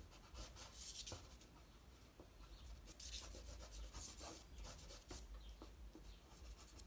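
Soft pastel stick rubbing and scratching across textured pastel paper in a series of short strokes, faint.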